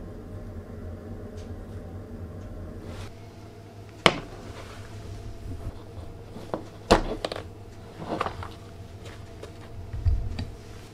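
Clear plastic compartment box being handled and opened: a few sharp plastic clicks and knocks, about four, seven, eight and ten seconds in, over a low steady hum.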